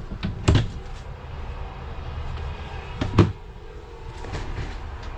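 Two sharp knocks about two and a half seconds apart as a storage cabinet door in a travel trailer is opened and shut, over a low steady rumble.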